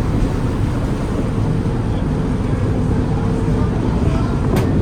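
Ferry's diesel engines running as a steady low rumble, with a short sharp click near the end.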